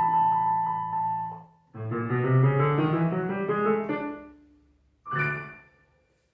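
Solo piano music: a held chord fades away, then a flowing run of notes rings out and dies down, and a single short chord closes the piece.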